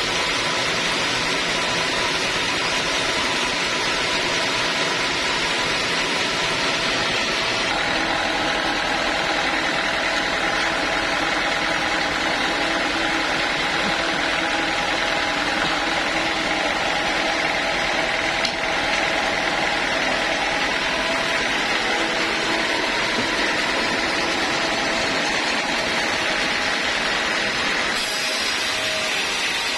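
Sawmill machinery running steadily: a constant machine noise with a few held tones and no pauses, its pitch shifting slightly about eight seconds in.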